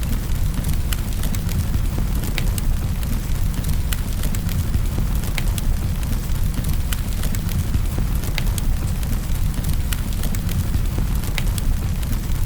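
Fireplace fire crackling, with scattered sharp pops at irregular moments, over a steady rush of rain.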